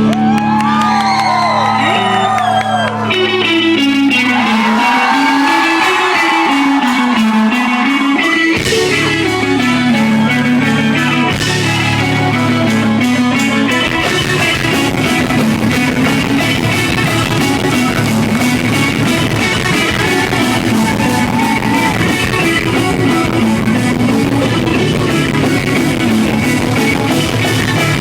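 Live rock band playing loud: electric guitars over bass and drums, with sliding, bent guitar notes in the first few seconds and the full band thickening about halfway through.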